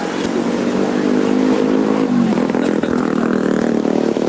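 A road vehicle's engine running loud and close as it passes, its pitch dropping about two seconds in.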